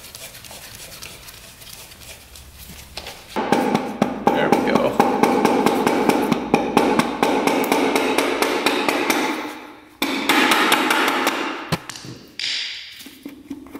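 Rubber mallet striking the cast-aluminium clutch cover of a 1977 Honda Z50 engine in a quick run of blows, to knock the stuck cover loose. The blows start about three seconds in, break off briefly near ten seconds, resume, then die away.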